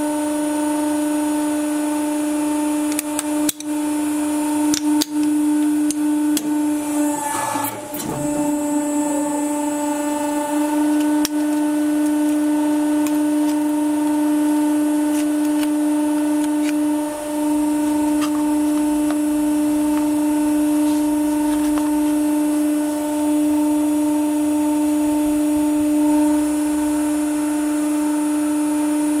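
Hydraulic press's pump running with a steady hum throughout. A few sharp clicks, then about seven seconds in a short crunching crackle as a stainless steel tea-infuser ball is crushed flat between the plates.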